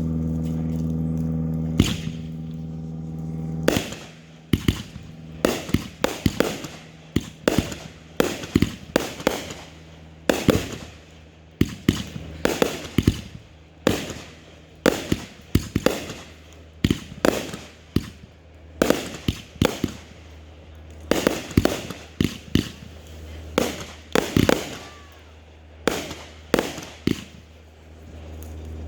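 Consumer fireworks cake firing a long volley of sharp reports, about one or two a second, each shot followed by a short crackling tail. At the start a steady low hum is heard, and it cuts off about four seconds in as the volley gets going.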